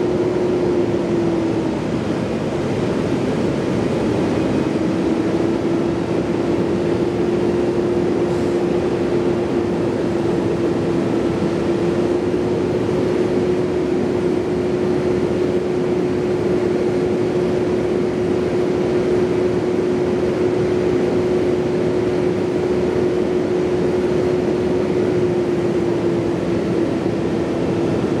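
A large engine running at a steady speed, a constant hum whose pitch sags slightly a few times, over a steady rush of noise.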